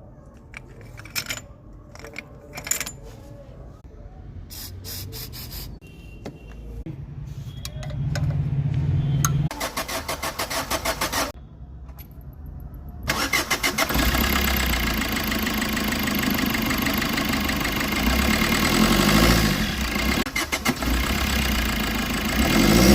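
Car engine being cranked by the starter with a pulsing rhythm, then catching about 13 seconds in and running loudly with a steady rhythmic knock, the sign of a faulty injector.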